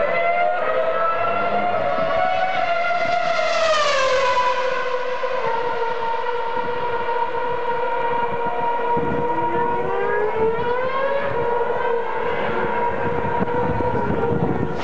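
Formula One cars' 2.4-litre V8 engines running at high revs on track. A high engine note falls sharply in pitch about four seconds in, then holds steady, with a second rising note from about nine to eleven seconds in.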